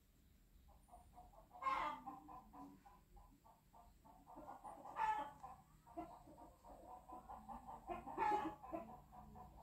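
Chickens clucking: a steady run of short clucks, several a second, with three louder calls about three seconds apart.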